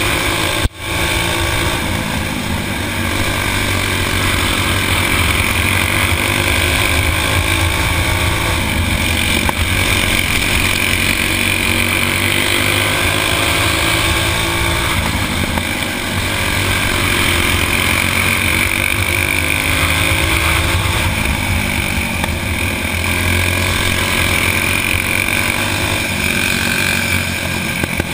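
Stock four-stroke racing kart engine running hard under race load, heard onboard with wind noise over the microphone; its pitch rises and falls a little through the laps. The sound cuts out for an instant under a second in.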